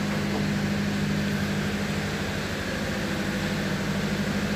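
A heavy engine idling with a steady, even low hum and a fast, regular pulsing underneath.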